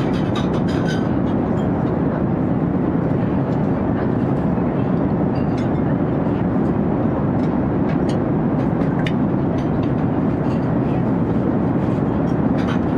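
Steady low roar inside an airliner cabin in flight, the drone of the engines and the airflow over the fuselage, even in level throughout. Faint short clicks and clinks come and go above it.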